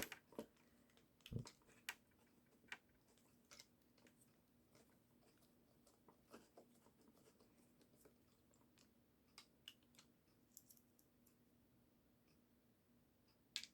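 Near silence with scattered faint clicks and taps, as a small screwdriver turns a screw out of a plastic animatronic toy's dancing mechanism and the parts are handled. A faint steady hum runs underneath.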